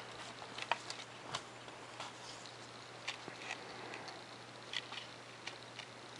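Hobby razor knife cutting a small opening out of a paper template on a carpet backing: faint, irregular scratches and small clicks as the blade is drawn and pressed through the paper.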